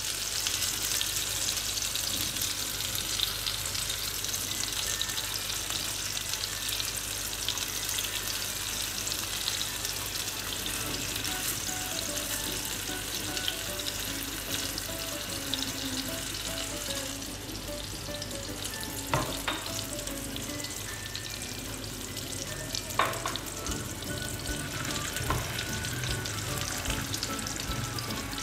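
Chicken seekh kebabs on wooden skewers frying in hot desi ghee over a low flame in a nonstick pan, giving a steady sizzle. Two sharp knocks come about two-thirds of the way through.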